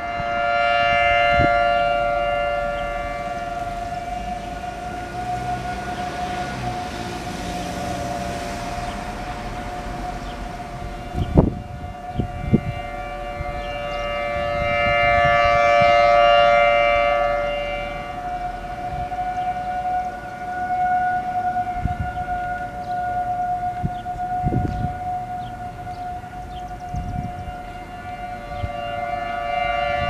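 Federal Signal Thunderbolt 1000T siren sounding a steady alert tone, a held two-note chord that swells and fades about every 15 seconds as the rotating horn sweeps toward and away. Its blower has quit, so it runs weak and thin. A few short thumps come in the middle.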